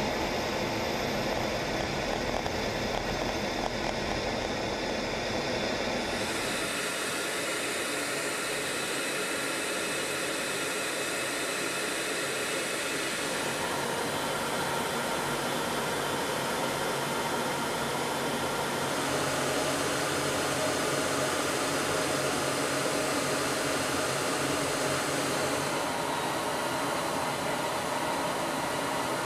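Steady rushing roar of a jet fighter in flight heard from inside the cockpit, engine and airflow noise together. Its tone shifts abruptly a few times.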